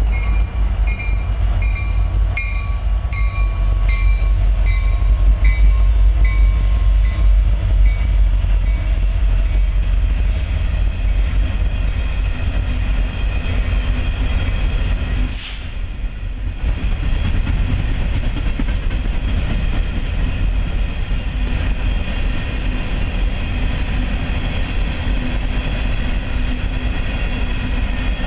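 Empty coal train passing close: three EMD six-axle diesel locomotives (SD70MACs and an SD75M) rumble by at the start, then empty steel coal hoppers roll past with a steady rumble and wheels clicking over the rail joints. A bell rings about twice a second for the first several seconds.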